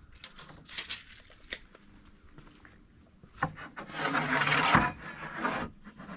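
A straightedge and tape measure handled on a sheet of plywood: light rubs and taps, then a long scraping slide across the board a few seconds in that ends in a sharp knock, and a shorter scrape after it.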